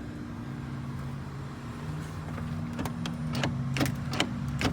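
A pickup's iced-over door being tried: about five sharp clicks and knocks in the second half, as the handle is worked and the door stays frozen shut. Under them runs a steady low hum.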